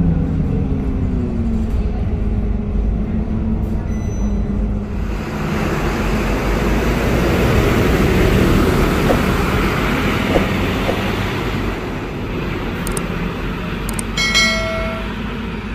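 Scania K230UB city bus: first heard from inside the cabin, its diesel engine and drivetrain running with the pitch falling as it slows, then from the kerbside as the bus pulls away from the stop, its engine loudest a few seconds after the change and fading as it drives off. Near the end a short pitched tone sounds for under a second.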